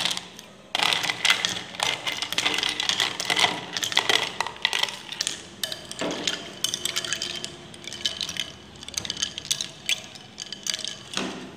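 Ice cubes scooped with a metal spoon from a plastic tub and dropped into a bowl of milk, then stirred in: a busy run of clinks and small splashes, starting about a second in.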